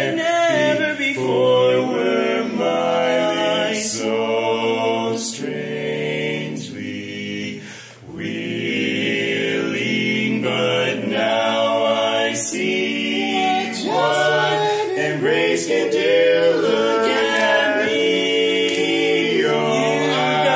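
Barbershop quartet singing a cappella in close four-part harmony: held, ringing chords with moving voice parts and a short break about eight seconds in.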